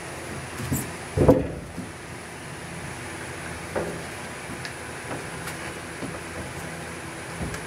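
Aluminum fuel tank being shifted and tipped down into its bay in a fiberglass boat hull: one loud bump about a second in and a few lighter knocks, over a steady background hum.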